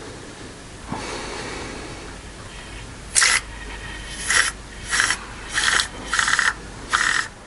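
Six short hissing blasts of compressed air, blown in quick pulses into the A14XER engine's oil channels to check that the lubrication passages are clear. The blasts start about three seconds in and come roughly one every 0.7 s, after a click and a faint hiss about a second in.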